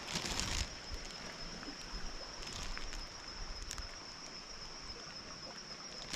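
Creek ambience: the steady rush of flowing creek water, with a thin steady high-pitched tone running through it. A brief rustle in the first half-second and a few faint clicks.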